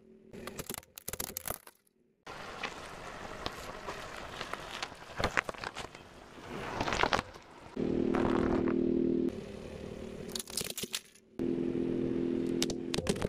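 A car tyre rolling over and crushing toys: crackling, scraping and sharp snaps, with a brief break a couple of seconds in. Twice, for a second or two, a steady pitched tone sounds, the second one near the end.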